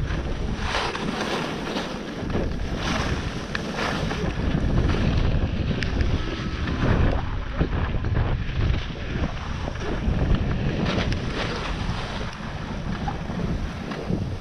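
Wind buffeting an action camera's microphone as a skier runs down a groomed slope, with the hiss and scrape of skis on snow through the turns. It eases near the end as the skier slows.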